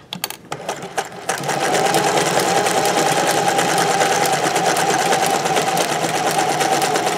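A few clicks, then about a second in a vintage zigzag sewing machine starts and runs steadily at speed, sewing a dense satin-stitch zigzag in reverse.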